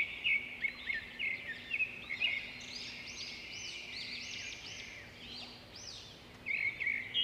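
Small birds chirping in the background: many quick, high, arched chirps overlapping one another, with a faint steady hum underneath.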